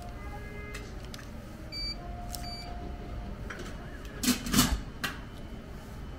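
Cup-drink vending machine beeping twice as it reads a paper drink ticket's barcode, over a steady low hum. About four seconds in comes a short, loud clatter of several quick hits.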